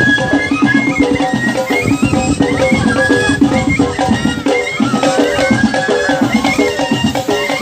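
Background music: a lively traditional-style tune with melody notes over steady drumming.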